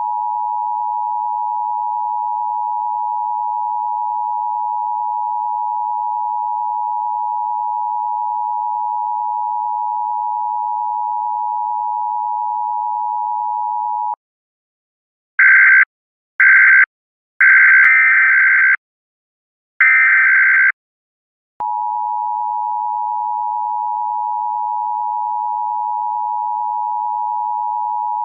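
A single steady electronic tone, like a dial tone, that cuts off about 14 seconds in; after a short pause come four short harsh buzzes, the third the longest, and then the steady tone resumes about 21 seconds in.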